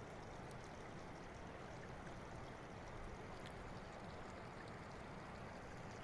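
Faint, steady rushing noise that stays even throughout, with a few light ticks.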